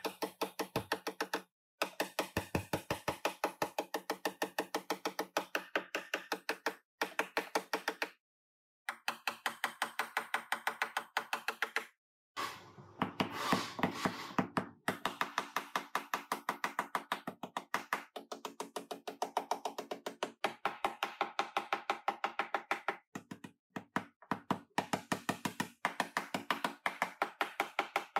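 A body hammer beating crash-damaged steel sheet metal of a rear-ended car's trunk floor and rear frame rail straight, at times striking through a wooden block laid on the metal. The blows come fast and even, several a second, each with a metallic ring, in runs broken by short stops.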